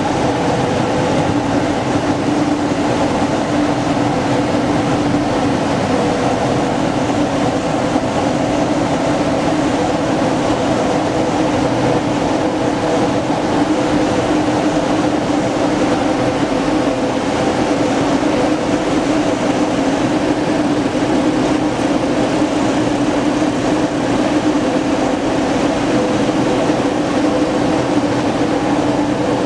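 Elgin Whirlwind MV vacuum street sweeper running with an unbroken, steady drone while its debris hopper is raised to the dump position.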